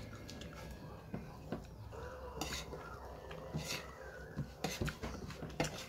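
Light, scattered clinks and scrapes of eating utensils against a plate, a few sharp clicks bunched near the end.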